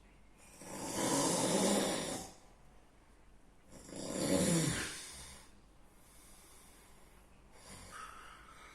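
A sleeping person snoring heavily: two loud snores, each about a second and a half long and about three seconds apart, then a fainter breath near the end.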